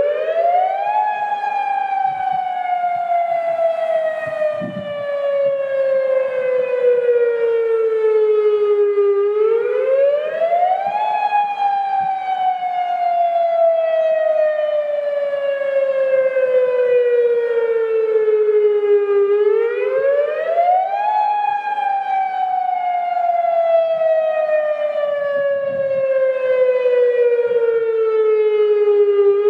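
Federal Signal Modulator 6024-B electronic tsunami siren sounding its wail: the pitch rises quickly, then falls slowly over about eight seconds, three times, about every ten seconds. It is the All-Hazard Alert Broadcast siren's full wail test signal.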